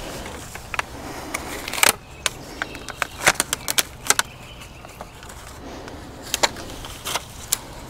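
Thin plastic nursery pot crackling and clicking as a root-bound plant is squeezed and worked out of it, a scatter of sharp irregular clicks.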